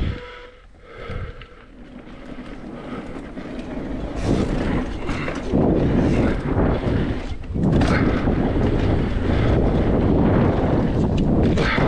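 Wind buffeting the camera microphone on a mountain-bike descent, with the rumble of the bike rolling over the trail. It starts fairly quiet, then builds to a loud, steady rush from about four seconds in as the bike gathers speed.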